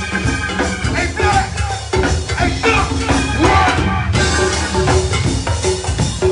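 Live go-go band playing, recorded in the room: drum kit and percussion keep a steady groove under bending melodic lines.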